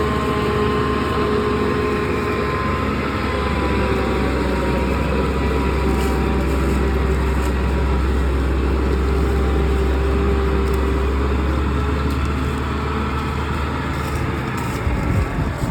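John Deere 6600 combine running steadily: a low engine drone with a steady whine over it. About a second before the end the low drone drops away as the machine is throttled down.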